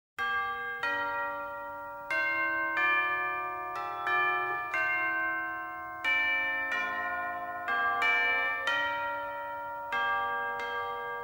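Bells struck one note at a time in a slow, changing sequence, about one strike a second, each note ringing on under the next. The bells start suddenly.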